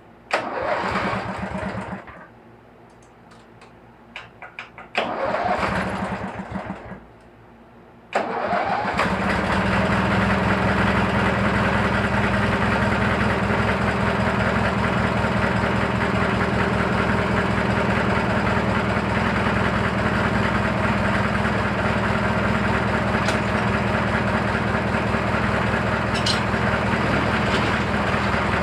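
Briggs & Stratton 18 hp opposed-twin engine cranked by its starter twice without catching, then firing about eight seconds in and running steadily. The engine has a knocking chatter that the owner cannot yet place.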